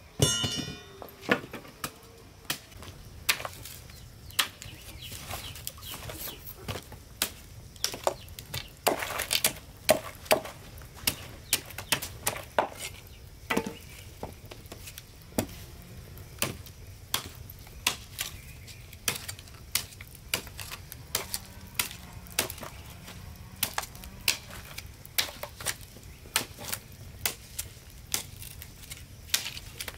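Short machete chopping and trimming a green wooden branch against a wooden stump: sharp, irregular chops about one or two a second, with a loud clatter right at the start.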